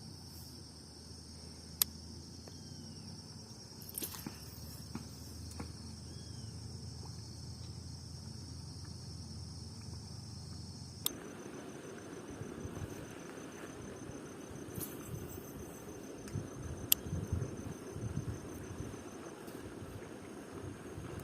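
Insects trilling steadily at a high pitch, typical of a riverbank. About halfway through, the trill changes abruptly to a different insect's rapid pulsing, and there are a few sharp clicks.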